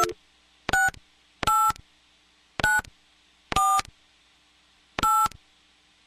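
Touch-tone telephone keypad being dialed: short two-note beeps, about one a second at uneven spacing, each keypress a different pair of tones, as a phone number is keyed in.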